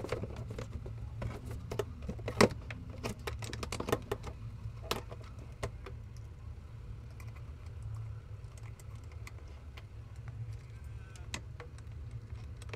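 Scattered sharp clicks and knocks from hands working on a stationary single-seater race car with its engine off, dense for the first six seconds and sparse after, over a low steady rumble.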